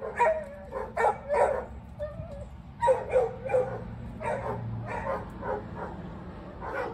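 Dogs barking repeatedly, a long run of short barks coming two or three a second with brief pauses.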